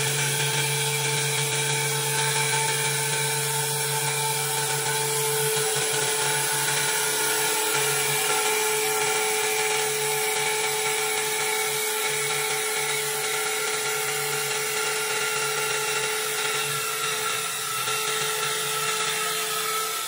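Four-axis CNC wood lathe cutting a spinning wooden spindle: a steady high-pitched motor whine at several pitches over the continuous hiss of wood being cut.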